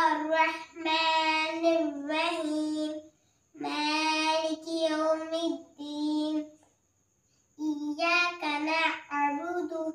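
A young girl reciting the Quran in a melodic tajweed chant, in three phrases separated by short pauses.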